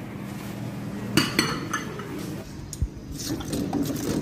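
Spoons and glass serving bowls clinking: a few sharp clinks with a short ringing tail about a second in, a dull knock near three seconds, and more quick clinks near the end.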